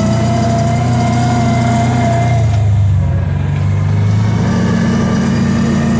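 Kawasaki Teryx side-by-side's engine running steadily under way. About halfway through, the engine note drops briefly as the throttle eases, then picks back up.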